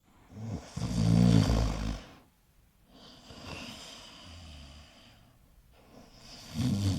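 Pomeranian snoring in its sleep: a loud snore about a second in, a softer breath in the middle, and another loud snore starting near the end.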